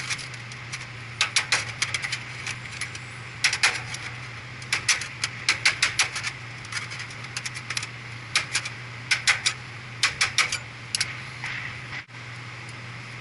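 Quick, irregular clicks and clinks of small parts being handled as wire nuts are taken off a condenser's power wiring, in clusters of several sharp ticks at a time, over a steady low hum.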